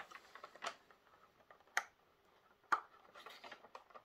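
Light handling of packaging: a clear plastic insert tray being slid out of a cardboard box. It gives soft rustling and scattered small clicks, with two sharper plastic clicks in the middle.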